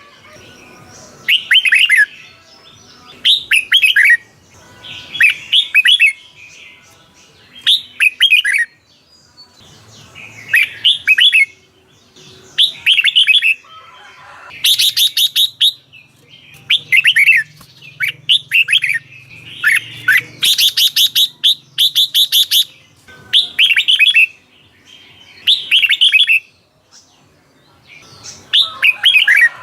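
Red-whiskered bulbul singing: short, bubbly phrases of quick whistled notes repeated every second or two, with a few faster, denser chattering phrases near the middle.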